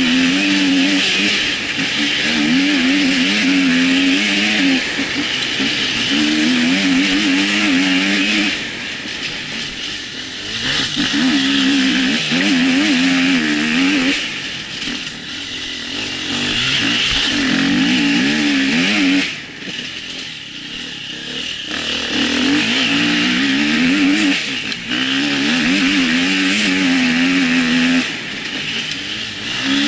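Husqvarna enduro motorcycle engine ridden hard, its pitch wavering up and down with constant throttle work. It eases off and picks up again three times, about nine, fourteen and nineteen seconds in.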